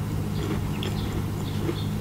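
Close-miked chewing of a macaron: soft mouth clicks and smacks scattered through, over a steady low hum.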